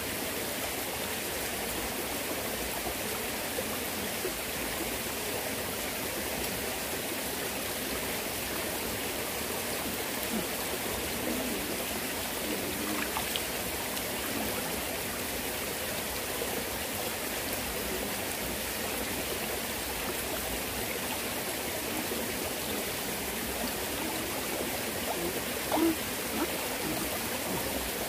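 Mountain stream flowing steadily over rocks, an even rush of water.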